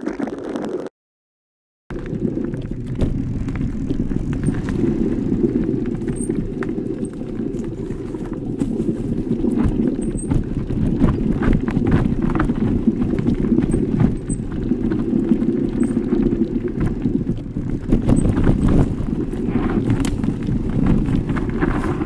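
Electric mountain bike riding fast over a dirt forest trail: a steady low rumble of tyres on the ground, with frequent clatters and knocks as the bike goes over roots and bumps. The sound cuts out completely for about a second near the start.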